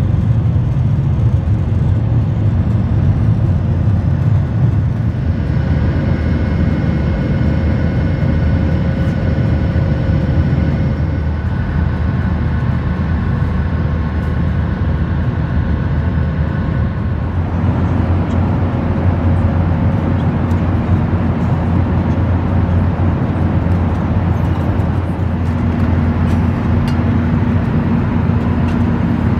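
Steady cabin noise of a Boeing 737-800 in flight: the drone of its CFM56 turbofan engines and rushing air, mostly low rumble. Faint steady tones come and go, and the sound shifts in character a couple of times.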